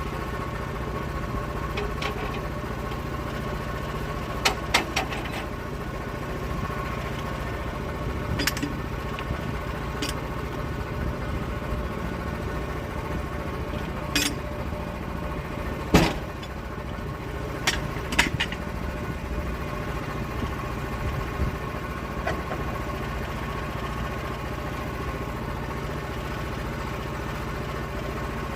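Engine running at a steady speed, with a scattering of sharp knocks and clacks over it, the loudest about sixteen seconds in.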